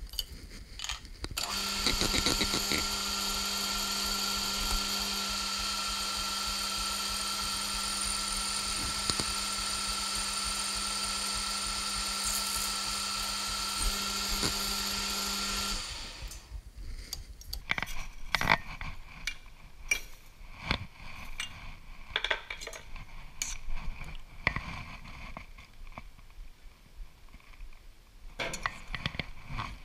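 Metal lathe running and turning an aluminium blank, a steady machine hum with a high whine, starting about a second and a half in and stopping abruptly after about fourteen seconds. After it stops, scattered clicks and knocks follow.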